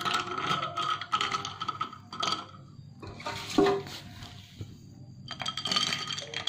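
Metal spoon stirring ice cubes in a glass of milk, clinking irregularly against the glass and the ice, with the liquid sloshing.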